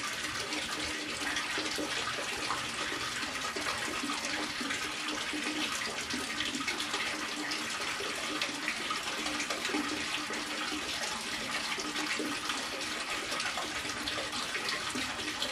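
Water splashing steadily into a home live-bait tank from its pump-fed return pipe, a continuous even rush of running water.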